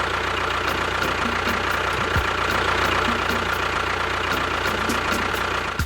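Small motor of a homemade miniature bulldozer running steadily, with a dense mechanical rattle and a constant high whine.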